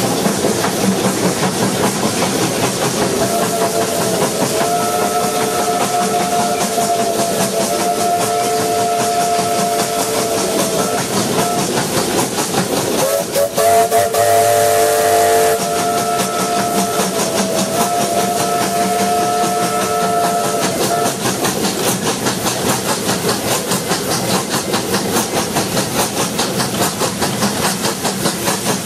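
Steam locomotive whistle sounding two long multi-note blasts a second or two apart, over the steady rumble and quick beat of the running steam train.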